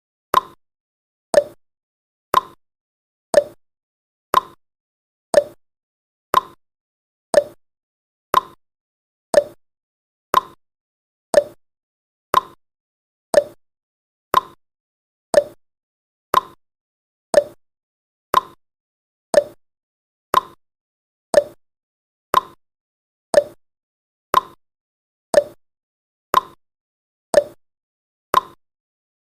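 Countdown timer's tick sound effect: one short, sharp tick every second, perfectly regular, each with a brief pitched ring that dies away at once.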